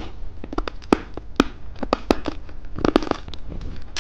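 Plastic lollipop wrapper being torn open and crinkled by hand: a quick, irregular run of sharp crackles.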